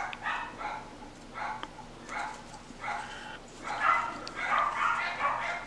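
A dog barking repeatedly, short yapping barks a few a second.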